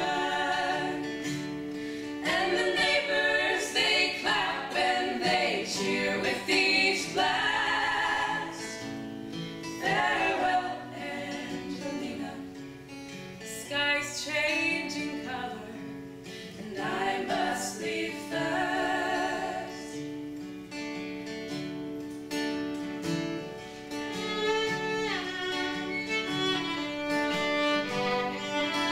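Folk group performing: women's voices singing in harmony over acoustic guitar, with a fiddle coming in near the end.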